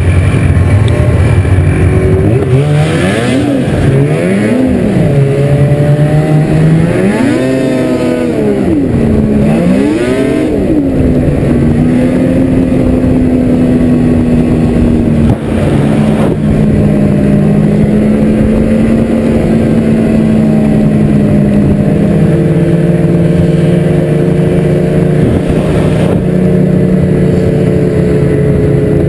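Ski-Doo MXZ 800X snowmobile's two-stroke engine, heard from the rider's seat: revved up and down several times over the first ten seconds, then held at a steady high pitch while cruising, stepping up a little about two-thirds of the way through.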